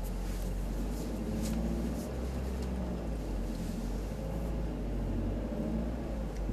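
Car engine idling, heard from inside the cabin, as the car manoeuvres slowly into a parking bay. A few light clicks come in the first few seconds.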